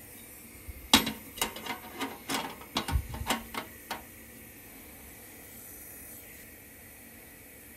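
Sheet-metal pot-support grate being set onto a gas camp stove, clattering and clicking about a dozen times over three seconds, the first knock loudest, over the steady hiss of the lit gas burner.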